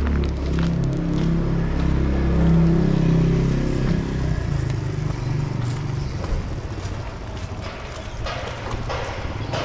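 A motor vehicle's engine running close by, loudest about two and a half seconds in, then fading away after about four seconds.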